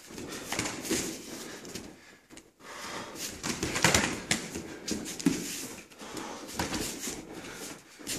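Kickboxing sparring: gloved punches and kicks landing in an irregular series, the loudest about four seconds in, with bare feet moving on the mats and hard breathing between strikes.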